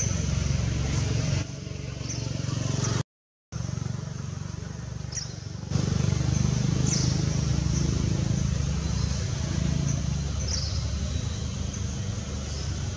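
Outdoor ambience: a steady low rumble with short high chirps every second or two. The sound cuts out completely for about half a second roughly three seconds in.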